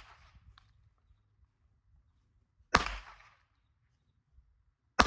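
Revolver shots at a target. The echo of one shot fades at the start, another shot cracks a little under three seconds in, and a third comes at the very end. Each crack trails a short echo.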